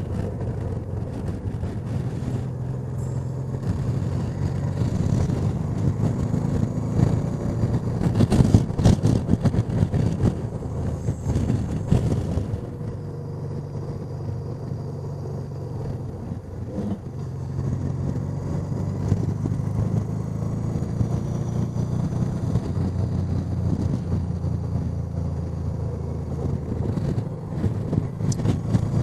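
Honda Deauville NT650V's V-twin engine running steadily while riding along, under heavy wind noise on the rider's microphone, which gusts louder for a few seconds about a third of the way in.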